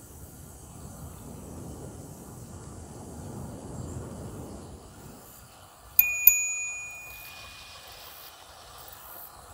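A bicycle bell rung twice in quick succession, about six seconds in: two bright dings that ring on for about a second. A low rumble runs through the first half.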